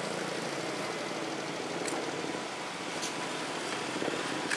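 Steady street traffic noise with an engine running somewhere near, and a few faint ticks.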